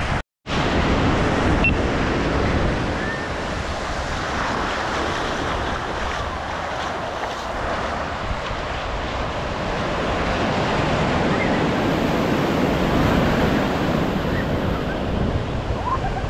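Ocean surf washing onto the beach, a steady rushing of breaking waves that swells and eases, with wind buffeting the microphone.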